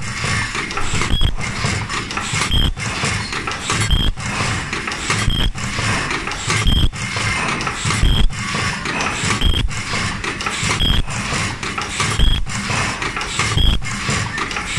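Automatic face-mask welding machine running, a steady mechanical clatter from its feed and welding stations in a cycle that repeats about every one and a half seconds, each cycle marked by a brief high-pitched tone.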